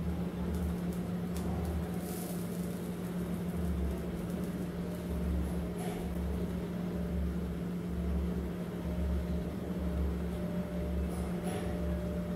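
Steady low hum with a slow, uneven throb beneath it and a few faint clicks.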